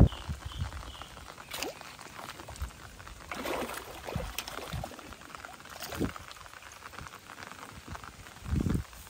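A hooked fish splashing and thrashing at the water surface in irregular bursts, over light rain pattering on the water.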